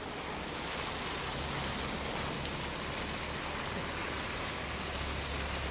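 BMW Z4 roadster rolling slowly on a rain-soaked road: a steady hiss of tyres on wet tarmac, with a low, quiet engine hum underneath.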